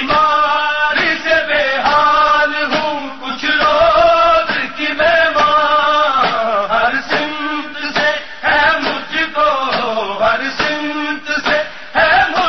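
A male noha, a Muharram lament in Urdu, chanted in long, bending melodic lines, with occasional sharp beats.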